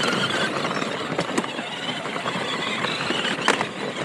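Kids' 24V electric ride-on truck driving over rough dirt: a steady, noisy rattle and crunch of the plastic wheels and body, with scattered clicks and knocks.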